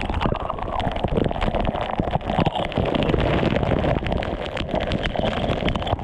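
Waterfall pouring and splashing straight onto a body-worn action camera: a loud, dense rushing noise packed with sharp patters of water striking the camera housing.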